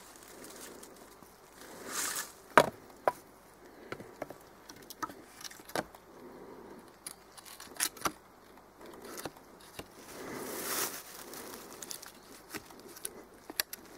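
Someone moving among boulders with a wooden stick: scattered sharp clicks and knocks, the loudest about two and a half seconds in and around eight seconds in, with a few brief rustling swells between them.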